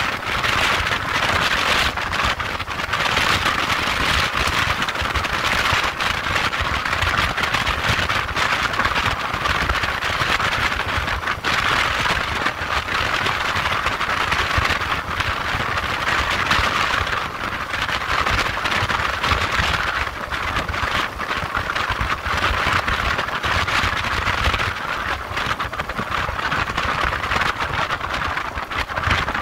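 Motorcycle riding at highway speed: a steady rush of wind and road noise with a low rumble underneath.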